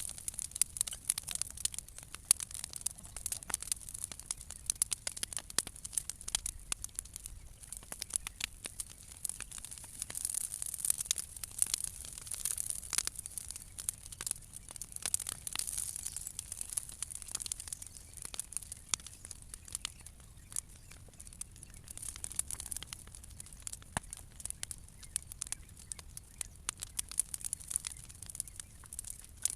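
Bonfire of old decking timber and cut branches burning, crackling constantly with irregular sharp pops over a steady high hiss.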